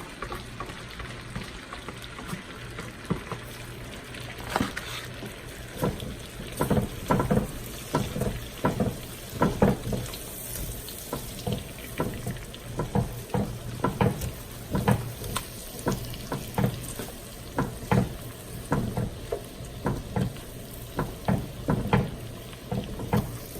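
Garlic and onions frying in melted butter in a pan, with a utensil stirring and knocking against the pan in quick, irregular strokes from about four seconds in.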